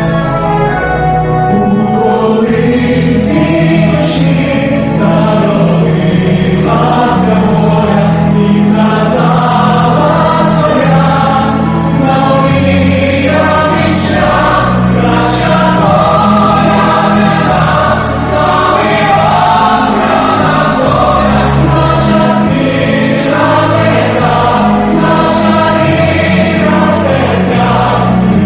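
Choir singing with orchestral accompaniment, the voices coming in about a second in over a full, steady instrumental backing.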